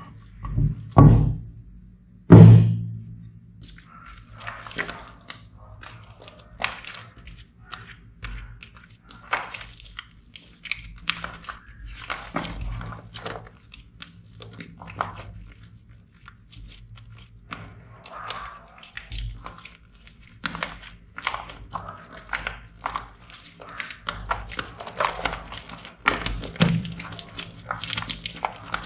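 Slime being squeezed, poked and stretched by hand, with two heavy low slaps near the start, then a steady run of small sticky clicks and popping air pockets.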